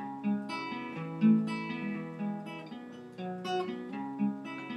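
Acoustic guitar played alone, strummed chords in a steady pattern with no voice over it.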